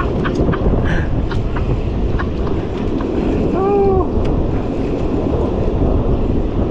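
Wind buffeting the microphone, a loud, rough, uneven rumble. About three and a half seconds in, a short call from a voice rises and falls.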